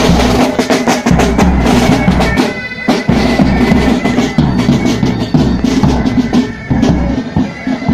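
Military pipe band playing: bagpipes sounding steadily over marching snare and tenor drums, with a low bass-drum beat underneath.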